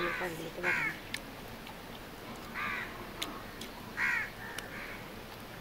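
Crow cawing: several short, harsh caws a second or more apart, with a few faint ticks between them.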